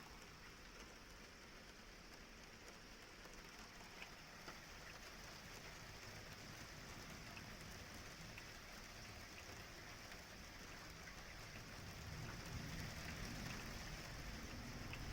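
Steady light rain falling, with a few faint drop ticks. A low rumble builds near the end.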